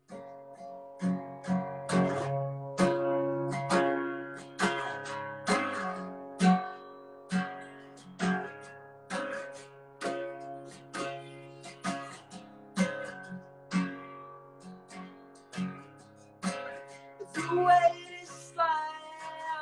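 Acoustic guitar strummed in a steady rhythm, about two strokes a second, in an instrumental passage of a solo song. A voice comes back in singing near the end.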